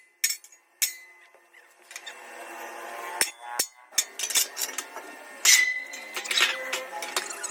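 A series of sharp taps or knocks, some in quick succession. A louder strike a little past halfway leaves a ringing tone that fades over about a second.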